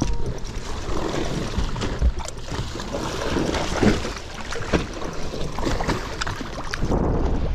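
Wind buffeting the microphone and water slapping against a fishing boat's hull, with a few short knocks.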